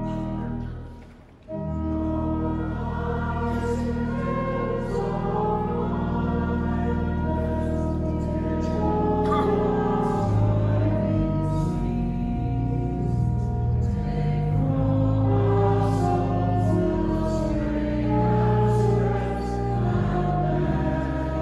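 A hymn sung by voices with church organ accompaniment, held chords changing from note to note. The music dips briefly about a second in, then carries on.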